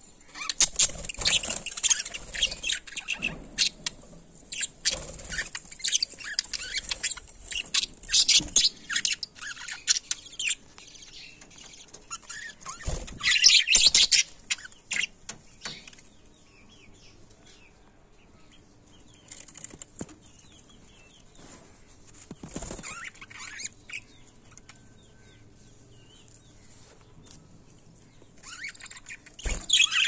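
A flock of budgerigars chirping and warbling: dense, overlapping chirps for about the first fifteen seconds, then sparser calls until a fresh burst near the end.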